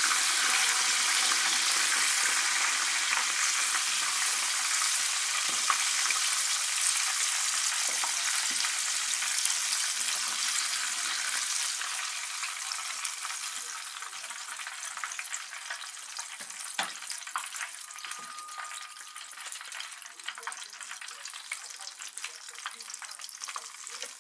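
Breaded chicken pieces deep-frying in a small saucepan of hot oil: a dense sizzle with scattered pops and crackles. It is loud at first and eases off steadily over the second half.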